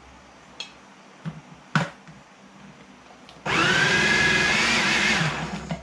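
A few light clicks and a sharp knock, then about two seconds in from the end the electric food processor's motor starts with a loud steady whine, chopping tomatoes, the pitch rising slightly before it cuts off.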